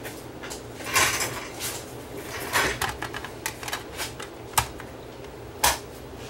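Plastic lid of a portable CD player being opened, a CD handled and pressed onto the spindle, and the lid shut: a series of plastic clicks and rattles, the sharpest click near the end as the lid latches.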